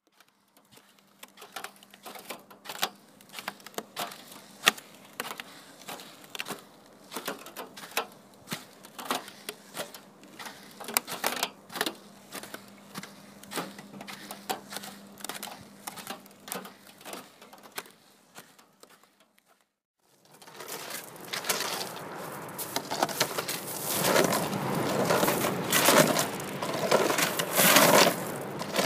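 Irregular sharp clicks and crackles over a faint steady hum, stopping briefly about 19 seconds in, then a louder, denser run of crunching and crackling.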